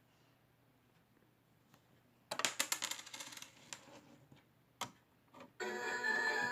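Coins clattering into a toy mini claw machine in a quick run of metallic clicks, then a single click. Near the end the machine's electronic tune starts playing.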